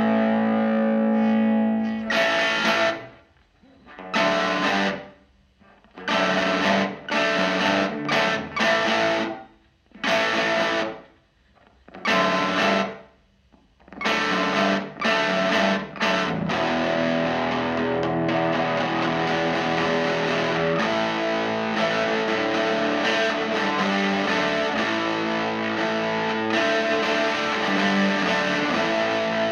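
Electric guitar played through a Vox AC4TV valve amp with an overdriven tone. For the first half, chords are struck, let ring and cut off into short silences. From about halfway, the playing runs on without breaks.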